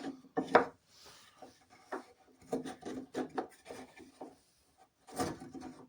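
Two pieces of 2x2 timber being handled and fitted together for gluing: light wooden knocks and rubs, a quick string of them in the middle.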